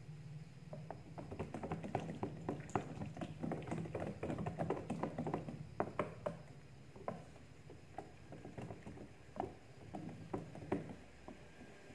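Wire whisk beating a thick mayonnaise-and-cream mixture in a plastic container: a fast, irregular run of clicks and taps as the wires hit the sides and bottom, busiest in the first half and thinning out near the end.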